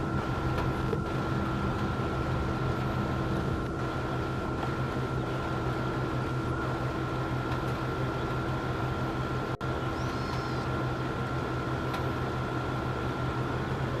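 A steady mechanical hum with a constant low drone and a faint steady whine. It briefly cuts out about two-thirds of the way through, and a faint high chirp follows soon after.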